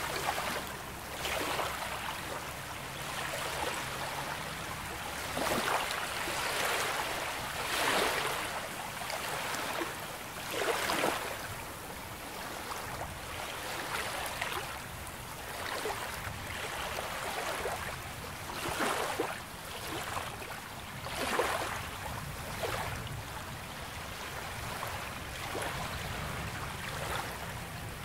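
Small waves breaking and washing up on a beach, a swell of surf every few seconds over a steady hiss of water.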